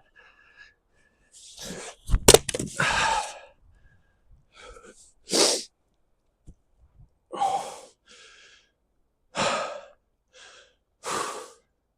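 One sharp crack of a splitting blow into a log about two seconds in. It is followed by a man's heavy breathing from the effort of swinging: loud exhales every couple of seconds.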